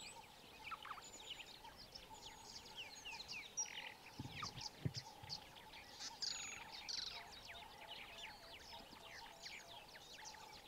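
Many small birds chirping together in a busy, overlapping chorus of quick downward-sliding calls, over a faint steady tone. There are two dull low thumps near the middle.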